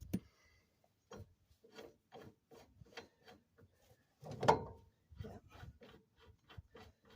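Short, regular rasping strokes of metal on metal, about three a second, with one louder knock just past midway. This is hand work on the Cushman rear hub and its threaded puller tool once the hub has broken free of the axle.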